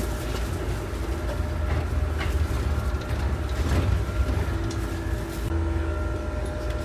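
Bus heard from inside while it moves: a steady low rumble of engine and road noise, with faint steady whining tones over it and a few light rattles. A lower whine comes in about four and a half seconds in.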